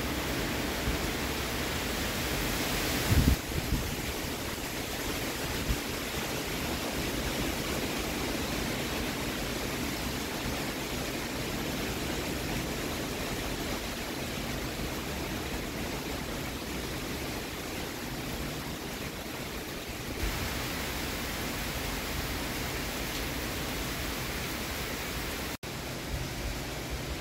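Heavy tropical-storm rain falling steadily on trees and pavement, a constant hiss with wind in it. A short, louder burst comes about three seconds in.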